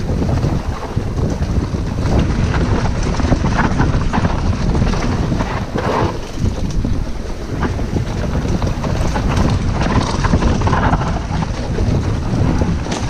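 Wind buffeting an action camera's microphone on a descending mountain bike, with the tyres rolling over dirt and the bike rattling and clicking over the bumps of the trail.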